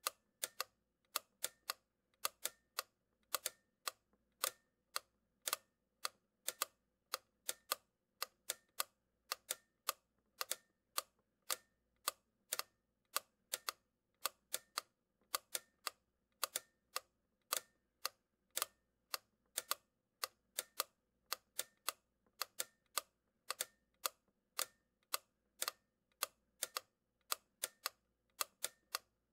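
A run of sharp, short clicks at an uneven pace, about two to three a second, some falling in close pairs.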